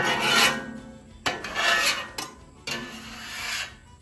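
Griddle scraper scraping stuck-on burger residue off a hot flat-top griddle loosened with cooking oil, in three long strokes.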